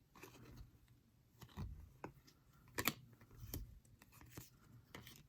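Baseball trading cards being handled and flipped through by hand: faint, scattered clicks and rustles as the cards slide against each other, the sharpest about three seconds in.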